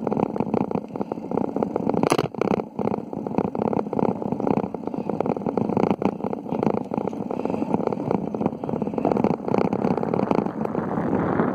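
Continuous rough, fluttering rumble of wind buffeting a handheld phone's microphone on a moving bicycle, with a sharp knock about two seconds in.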